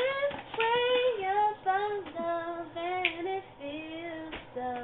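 A woman singing a melody without words being spoken, holding short notes that step up and down in pitch.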